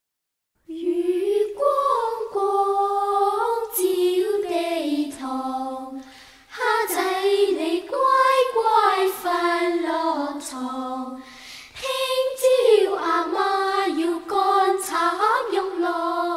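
Wordless vocal choir singing the slow introduction to a Mandarin ballad: long held, wavering notes in three phrases, beginning just under a second in.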